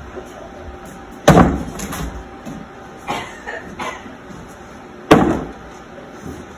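Cornhole bean bags landing with loud thuds on a wooden cornhole board, once about a second in and again about five seconds in, with a few softer knocks in between.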